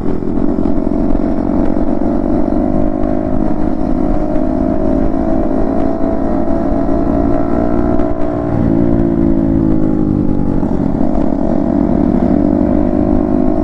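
Single-cylinder motorcycle engine running steadily under way, its pitch easing off twice in the second half as the throttle is rolled back and then picked up again.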